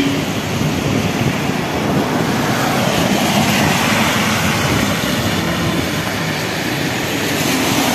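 Steady rushing noise of fast floodwater and wind, mixed with road traffic passing on the bridge. A vehicle horn cuts off right at the start.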